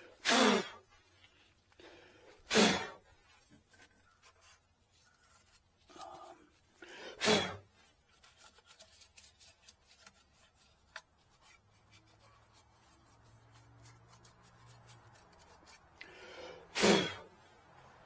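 Four hard puffs of breath blowing dust and debris out of the generator's fuse holder, spaced out with the last one near the end, with faint clicks and handling noise in between.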